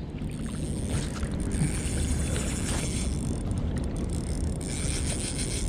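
Steady wind and water noise around a kayak on open water, with a deep rumble on the microphone.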